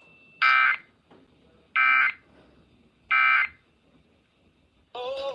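Emergency Alert System end-of-message over NOAA Weather Radio: three short bursts of digital SAME data tones, about 1.3 seconds apart, marking the end of the severe thunderstorm warning. Music starts near the end.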